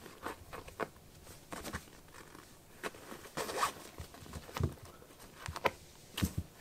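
Two kittens play-wrestling, their paws scuffing and patting on a carpet mat and a fabric cat tent in irregular small scrapes, with a few soft thumps in the second half.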